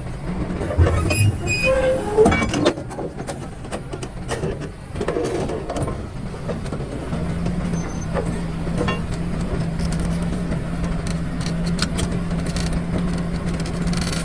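DLC 225 excavator running steadily while handling blasted rock: rocks knock and clatter against the bucket and each other, with several louder clanks and metal squeaks in the first few seconds.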